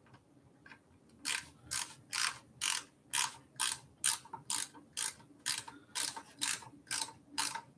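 Ratchet wrench clicking in short, even strokes, about two a second from about a second in, as it drives a fender mounting bolt home.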